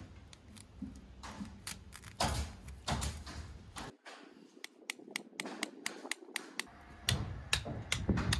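Small hammers striking U-shaped weed-barrier pins, driving them through the fabric sheet into the ground: repeated sharp taps that come quicker in the second half, when two hammers are going at once.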